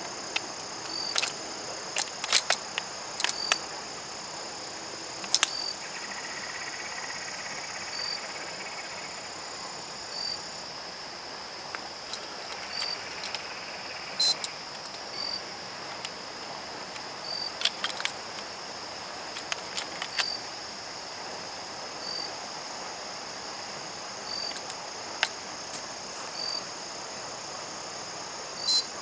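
Steady high insect chorus, with one short chirp repeating about once a second. Over it come scattered sharp clicks and light clatter from handling a handheld digital fish scale and a plastic lip gripper while a catfish is weighed.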